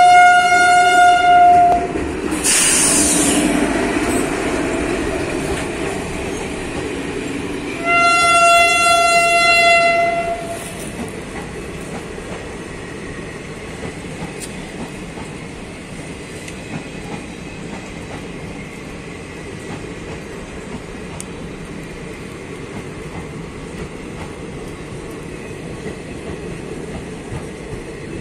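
WAP-4 electric locomotive sounding its horn in two long single-note blasts, the second about eight seconds after the first, with a loud rush of noise as the locomotive passes close between them. The passenger coaches then roll by with a steady rumble and occasional wheel clicks.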